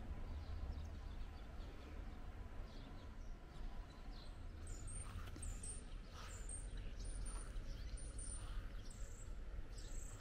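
Faint outdoor ambience with a steady low rumble. From about halfway in, a small bird gives short, high chirps, repeating roughly twice a second.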